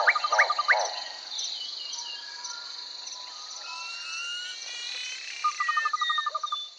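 Jungle ambience: a steady, high insect drone throughout, with rapid pulsing frog or insect calls in the first second and again near the end, and thin rising bird whistles in between.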